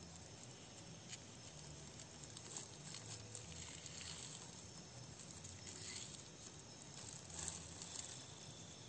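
Faint rustling and crinkling of plastic wrapping handled in the hands, a few soft crinkles spread through. Near the end crickets start a thin, steady chirping.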